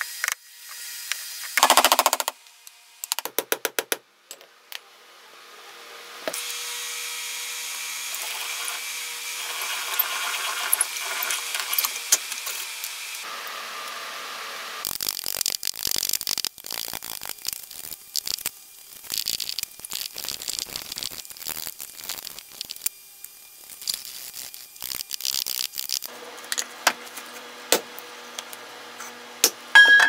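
Hand woodworking on a small wooden perch: a knife taking irregular short cuts and scrapes off the wood, with scattered taps. Near the start there is a strong pitched sound, a quick run of clicks, and then several seconds of steady running noise.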